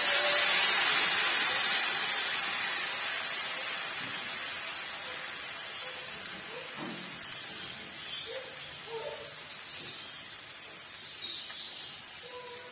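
Green chili paste sizzling in hot cooking oil in a frying pan. The hiss is loud at first and gradually dies down.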